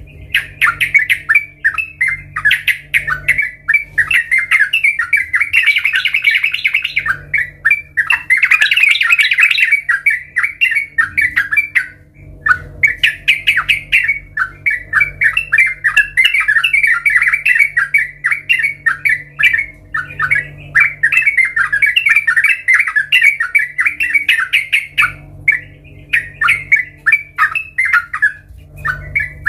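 Yellow-vented bulbul singing: long runs of rapid, bubbly chattering notes with short pauses between phrases. A faint steady low hum lies underneath.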